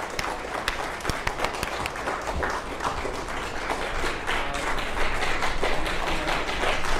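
A small group of people clapping: steady, irregular applause.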